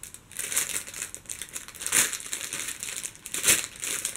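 Clear plastic packaging crinkling and crackling as it is handled and pulled open by hand, irregularly, with sharper crackles about two seconds in and again later.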